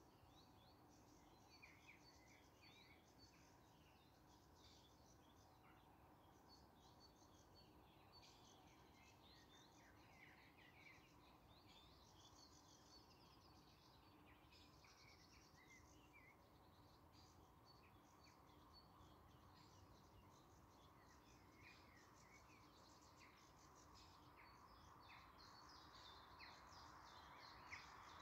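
Faint birdsong, many short chirps and trills, over a quiet background hiss that grows a little louder near the end.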